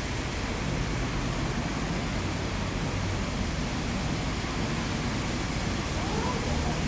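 ICE RS32 ride-on wet floor scrubber running: a steady, even rushing hiss with a low hum underneath.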